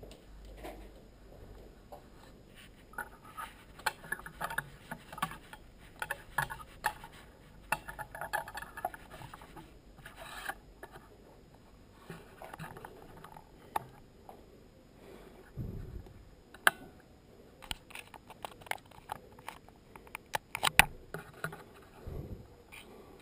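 Handling noise of gear in a small room: scattered clicks, scrapes and rubbing, thickest in the first half. Later come a few dull thumps and sharp knocks.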